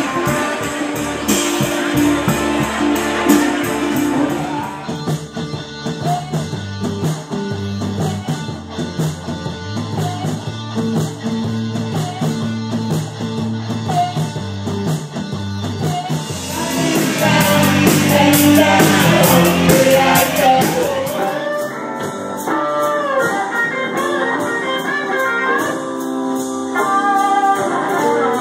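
Live band music with electric guitar, drums and singing, jumping abruptly to a different song three times.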